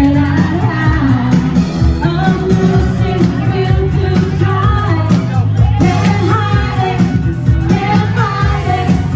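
A woman singing pop into a microphone over a backing track, amplified through PA speakers, with heavy bass.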